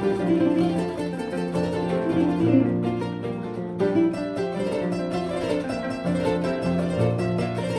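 Kora being played: a quick run of plucked notes over repeating lower bass notes on the same strings.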